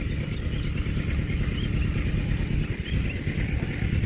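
Low steady rumble of an idling safari vehicle engine, with a few faint short high chirps over it.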